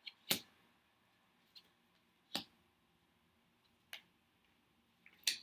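Tarot cards being drawn from a deck and laid down on a table: a few short, sharp card clicks and snaps, spaced irregularly one to two seconds apart, the strongest near the start, in the middle and at the end.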